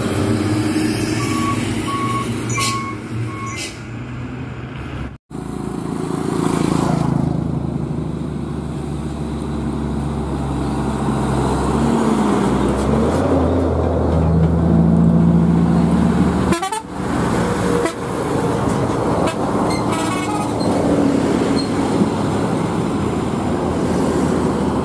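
Hino heavy trucks' diesel engines driving past. A row of short, evenly spaced beeps comes in the first few seconds. After a cut about five seconds in, a Hino FM 340TH tractor-trailer runs by, its engine pitch rising and falling as it pulls past.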